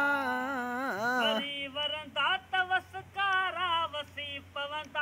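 A man singing solo with no instruments. A long held note wavers in pitch and falls away about a second and a half in, then comes a run of short sung phrases with brief breaks between them.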